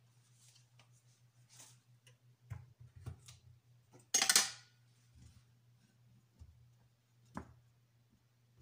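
A frying pan with heating oil is shifted on a glass cooktop, making a short scraping rustle about four seconds in. A few light clicks and a faint steady low hum run underneath.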